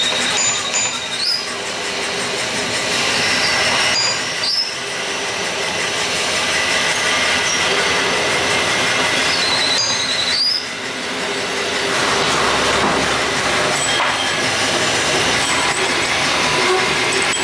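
Metal lathe running, turning a steel crankshaft held in its chuck, with the continuous clatter and steady high metallic squeal of machining.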